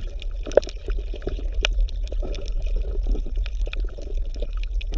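Water bubbling and splashing, with many small quick drips and splashes over a steady low hum.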